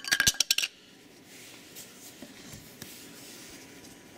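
A quick run of small sharp clicks as the screw-on back section of a 58mm fisheye lens is turned off by hand, then faint handling.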